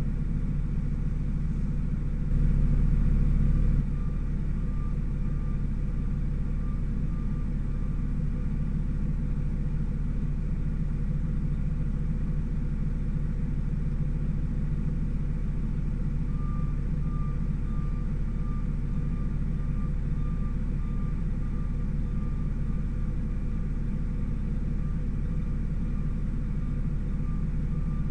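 Fire engine's engine running with a steady low rumble, swelling louder for a second or so about two seconds in. A faint beep repeats about twice a second through two long stretches.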